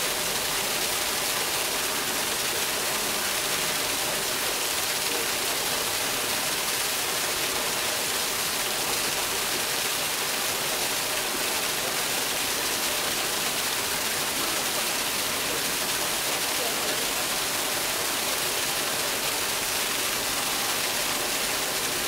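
Water falling steadily from a height into a pool, splashing continuously: an even, unbroken rushing hiss from a small artificial waterfall.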